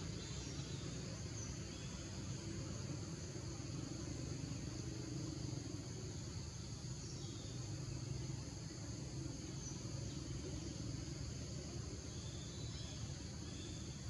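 Tropical forest ambience: insects keep up a steady high-pitched drone. A few short bird chirps come through, over a low steady rumble.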